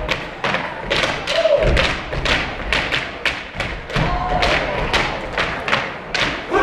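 Step team's canes striking the wooden stage floor together with stomping feet in a fast rhythm, about three or four strikes a second, with a few short shouted calls.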